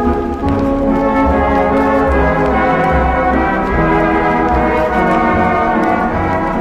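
Orchestral music led by brass, holding loud sustained chords, with a brief dip and a change of chord about half a second in.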